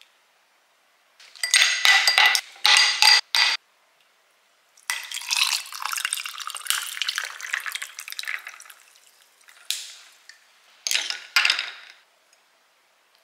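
Kitchen utensils clattering against a ringing bowl in short bursts, then a few seconds of running water that fades away, then two more brief clatters.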